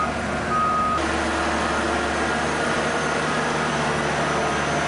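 Heavy machine's engine running steadily, with its reversing alarm beeping at about one beep a second; the beeping stops about a second in while the engine keeps running.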